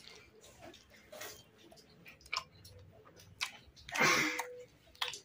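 A person chewing and smacking his lips while eating rice and pork with his fingers, with scattered small clicks. About four seconds in there is a louder, breathy rush of noise.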